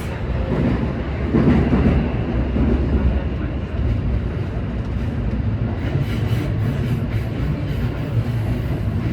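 Seibu 20000 series electric train running along the line: a steady rumble of wheels on rail, briefly a little louder about a second and a half in.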